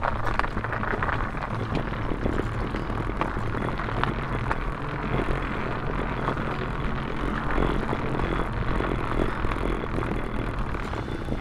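Fat bike tyres rolling over a wooden plank bridge deck: a steady rolling noise with many small clicks as the wheels cross the planks.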